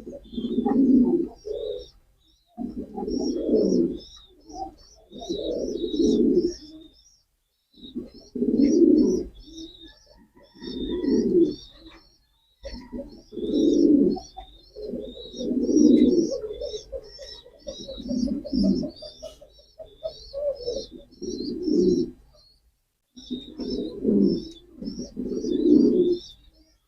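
Pigeons cooing: low, rolling coo phrases about a second long, repeated every two to three seconds, over a steady patter of rapid, high-pitched chirps.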